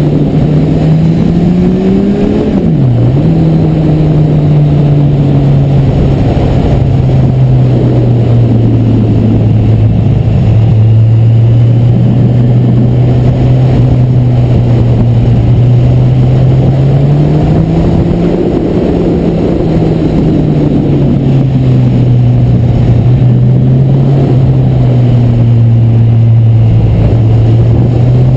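Kawasaki Z1000SX's inline-four engine running under the rider's throttle through a run of bends. Its pitch rises and falls gently, with a short climb and a sudden drop about three seconds in.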